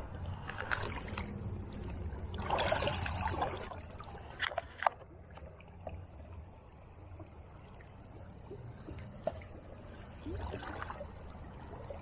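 Shallow river water sloshing and splashing as a person wades through it, in bouts near the start and again near the end, with two sharp clicks about four and a half seconds in.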